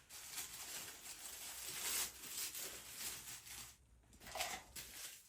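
Packaging rustling and crinkling as parts are handled and unwrapped, a run of scratchy rustles that pauses briefly near the end and starts again.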